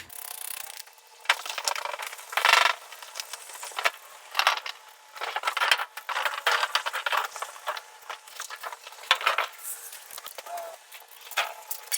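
Irregular brief scrapes, rustles and light metallic clinks from sheet-metal roofing panels being wiped and handled during hand cleaning.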